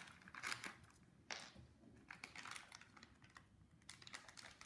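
Plastic cat-treat packet crinkling quietly in the hands as it is opened, in short, irregular rustles.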